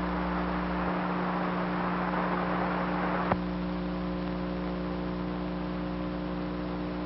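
Steady hiss from a two-way radio channel between transmissions, under a constant electrical hum, with a single sharp click about three seconds in.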